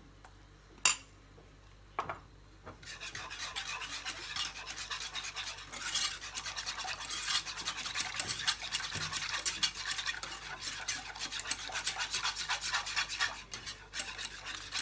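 A sharp tap about a second in, then from about three seconds on a wire whisk stirs a liquid mixture in a bowl in quick, steady strokes, a fast run of fine scraping ticks. The mixture is cold lemon cream with cornstarch just added, whisked cold so the cornstarch does not form lumps.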